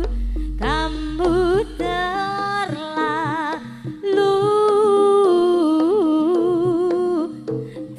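Javanese jaranan ensemble music: a wavering lead melody of long held notes with vibrato over a steady drone, with a deep gong stroke ringing out over the first two seconds.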